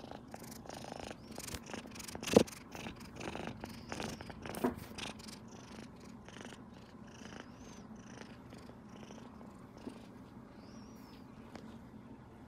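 Kitten purring continuously and very loudly while being stroked under the chin. A few sharp clicks and rustles from handling come in the first five seconds, the loudest about two seconds in.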